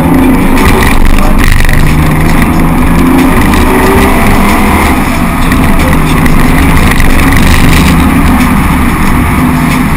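Drift car's engine running hard, heard from inside the cabin, loud, its pitch rising and falling with throttle and gear changes over road and wind noise.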